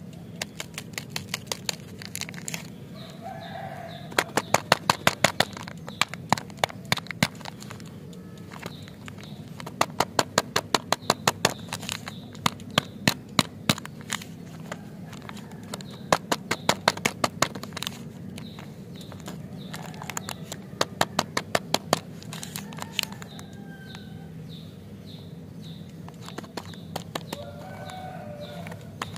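Plastic lollipop wrappers crinkling and crackling as they are handled, in repeated bursts of quick sharp clicks every couple of seconds, over a steady low hum.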